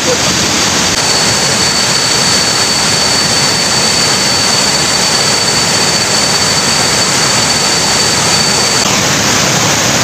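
Waterfall: a loud, steady rush of falling water. A thin, steady high tone runs over it and stops about a second before the end.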